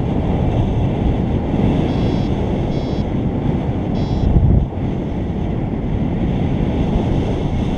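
Airflow buffeting the microphone in flight, a steady loud rumble, with a paragliding variometer giving three short high beeps about a second apart around the middle.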